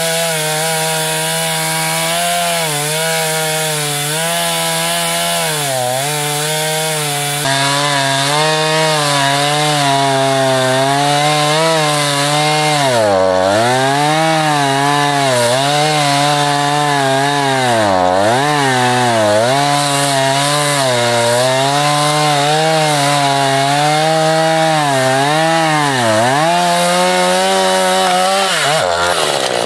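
Husqvarna 440 two-stroke chainsaw with an 18-inch bar running at high revs while cutting through a tree trunk. Its engine pitch dips again and again as the chain bites into the wood under load, then climbs back.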